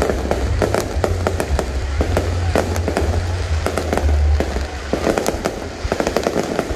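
Fireworks display: a dense, irregular run of sharp bangs and crackles from aerial shells bursting overhead, over a steady low rumble.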